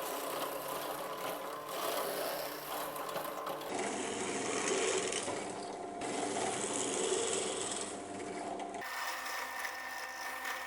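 A small power tool grinding at the wooden knife handle, with a steady whir under a rough rubbing noise. It comes in a few short cut-together stretches, and the tone changes abruptly about four, six and nine seconds in.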